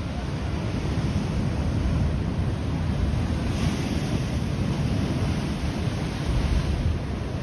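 Pacific surf surging over a rocky shore, with wind rumbling on the microphone. A louder hissing rush of water comes in about three and a half seconds in and lasts a few seconds.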